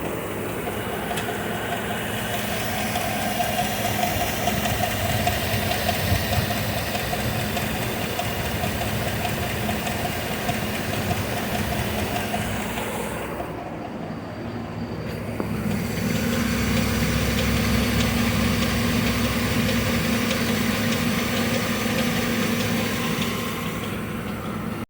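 Paramedic truck's engine idling with a knock from the number 3 connecting rod: a failed rod bearing, bad enough that the engine is due for replacement. The tone of the running engine shifts about fifteen seconds in.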